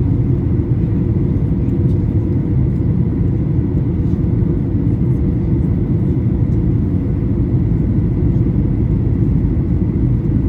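Steady, loud cabin rumble of a Boeing 737-800 with CFM56-7B engines, heard from an economy window seat, with a faint steady hum running through it.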